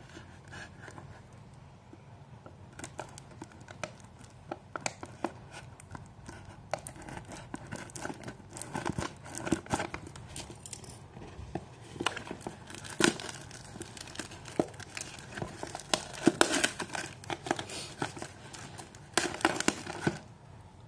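Plastic packaging and tape crinkling and tearing as a parcel is cut and pulled open with scissors. The sound is a run of sharp crackles and rustles that grows busier and louder about a third of the way in.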